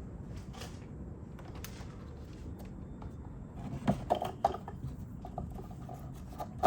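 A few light clicks and knocks starting about four seconds in, over a steady low hum: oil filter parts being handled and fitted by hand in the engine bay.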